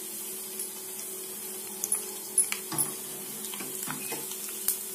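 Vadagam frying in hot oil in a small steel pan: a faint sizzle with several sharp clicks of a spoon against the pan, over a steady low hum.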